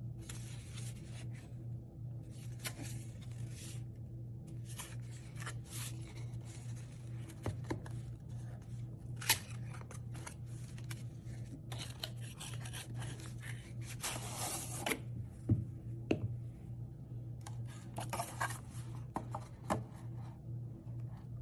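Hands handling a cardboard box: fingers rubbing and sliding over the card, the end flap opened and a glasses case slid out, with irregular scraping rustles and a few sharp taps past the middle. A steady low hum runs underneath.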